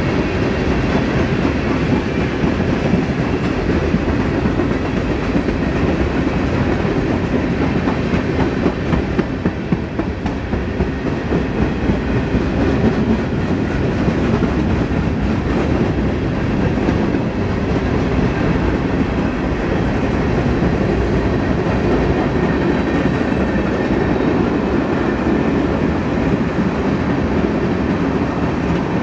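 Norfolk Southern freight train of tank cars and covered hoppers rolling past close by: the steady, loud rumble and clatter of steel wheels on the rails, car after car.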